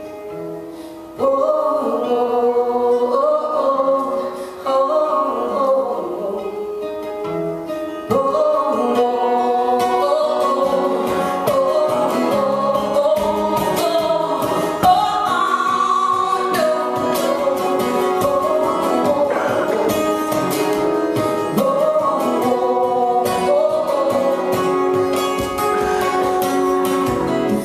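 Live solo song: a woman singing over a strummed acoustic guitar, getting louder about a second in.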